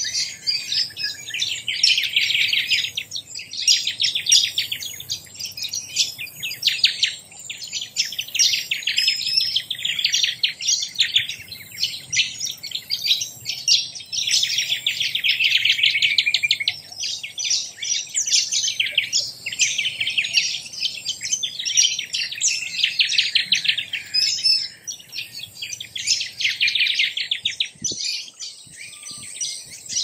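Many birds chirping and chattering at once, a dense stream of rapid, high, overlapping calls that swell and ease every few seconds.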